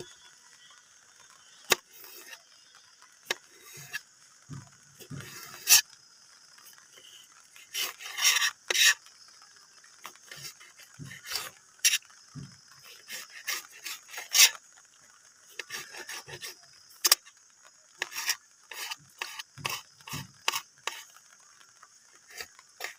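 Small knife slicing a tomato on a wooden chopping board: irregular sharp taps of the blade hitting the board, mixed with short rubbing, scraping cuts.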